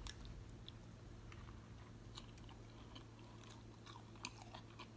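Faint close-up chewing of a bite of steak street taco: small, scattered wet mouth clicks.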